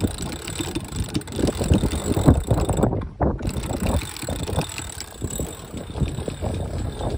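Sailboat winch ratcheting in irregular clicks as its handle is cranked, with wind on the microphone.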